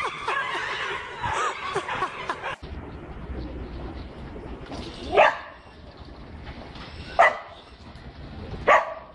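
A dog barking: three single, sharp barks about two seconds apart. Before them, a few seconds of busier mixed sound cut off abruptly.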